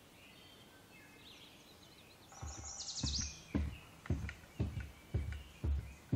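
Footsteps at a walking pace on a trail, starting about two seconds in at roughly two steps a second, with birds chirping.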